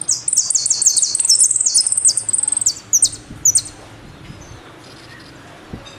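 Argentine jilguero (saffron finch) singing: a fast run of high, downward-sweeping notes lasting about two and a half seconds, then two or three separate single notes.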